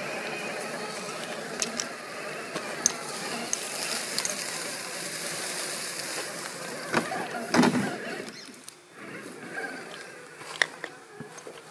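Axial SCX6 1/6-scale RC rock crawler climbing over dry leaves and rocks: the electric motor and drivetrain gears whine, wavering with the throttle, under crunching leaves and clicks of tyres and chassis on stone. About seven and a half seconds in comes a loud crunch, after which the sound grows fainter as the crawler moves off.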